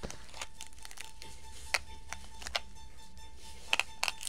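Several sharp clicks and taps scattered through, over faint background music with a steady high tone.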